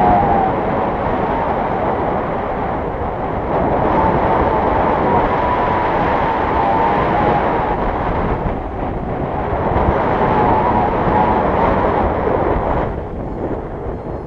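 Wind rushing over a pole-mounted action camera's microphone during a tandem paraglider flight, a loud steady rush with a faint wavering tone above it. It eases and dulls about a second before the end.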